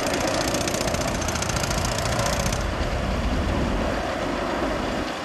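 Boeing 737-800's CFM56 jet engines running as the airliner rolls along the runway: a steady rumble and roar that eases slightly near the end.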